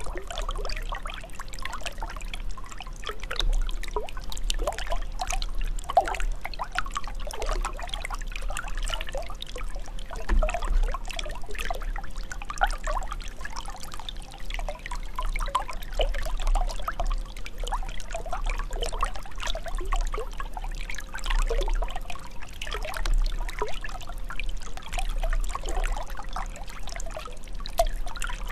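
Running water pouring and trickling steadily: a dense, irregular splashing over a low rumble.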